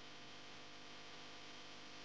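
Near silence: a faint, steady hiss with a low hum, with no distinct events.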